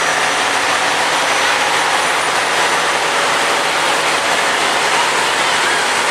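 Trucks passing close by in a parade, a steady loud rush of engine and road noise.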